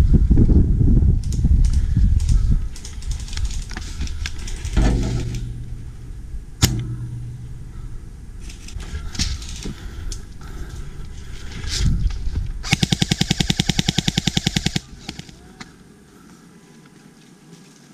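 Airsoft rifle firing a full-auto burst, a fast even rattle of shots lasting about two seconds, about twelve seconds in. Before it come rustling movement and a few single sharp clicks.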